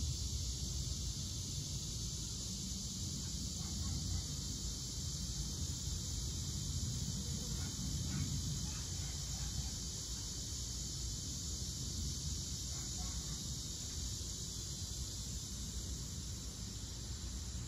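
Cicadas calling in chorus: a steady, high, even buzz, with a low rumble underneath.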